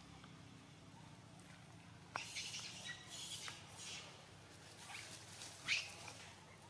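Short high-pitched animal chirps and squeaks in two clusters, one about two seconds in and one around five to six seconds, the loudest a quick sliding squeak.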